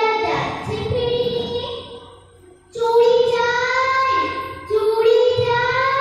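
A child singing solo, holding long notes, with a brief break for breath a little over two seconds in.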